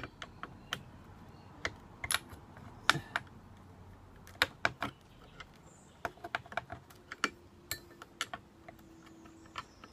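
Irregular small clicks and knocks of metal parts being handled as a chainsaw bar and chain are fitted to the saw body.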